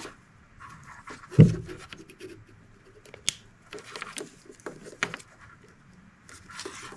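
Hands working the plastic cap of a Bosch O2 sensor splice connector shut over the wires, with rustling and a heavy thump about a second and a half in. Sharp clicks around three and five seconds in are the cap snapping onto its locking tabs.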